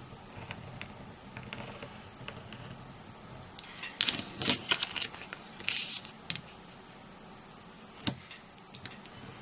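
Craft materials being handled on a work surface: a run of rustling and clicks between about four and six seconds in, then a single sharp tap about eight seconds in.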